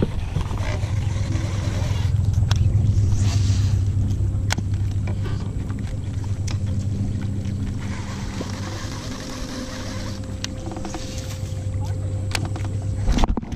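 A bass boat's small electric motor humming steadily, with a few light clicks on top; the hum cuts off near the end.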